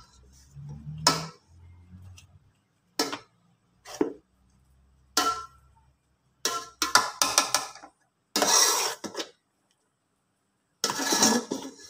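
Metal potato masher knocking against a black pot while mashing boiled taro. Single knocks come about a second apart at first, then a quick run of strikes, then two longer scraping strokes.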